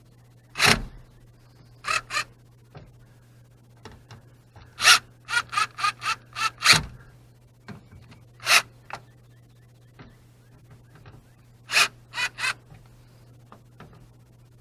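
Cordless drill-driver set to low torque, driven in about a dozen short trigger bursts, a few in quick runs, snugging the four speaker screws down into the foam baffle.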